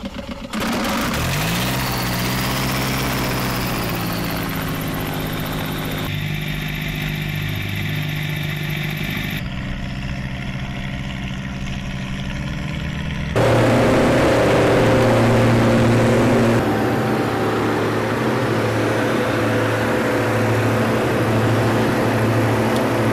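Propeller engines of a light twin-engine aeroplane running. They rise in pitch about a second in, then hold a steady drone. The sound changes abruptly a few times, and over the last third it is louder and pulses, heard from inside the cockpit.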